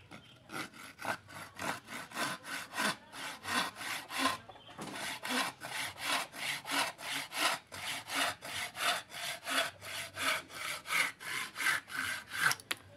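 Homemade hand saw, its blade cut from an old sawmill blade and freshly filed, sawing back and forth through a wooden slat in quick, even strokes, about three a second. This is a test cut of the new teeth, which cut very sharp and fast.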